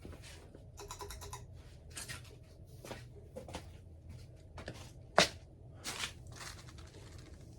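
Hunter Original ceiling fan's oil-bath motor running on medium speed with a quiet, steady low hum. Scattered light clicks and rustles over it, with one sharper click about five seconds in.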